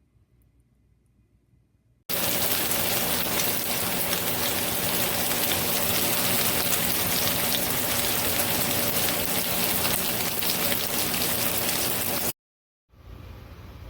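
A loud, steady crackling hiss starts suddenly about two seconds in and cuts off abruptly near the end, followed by a quieter hiss.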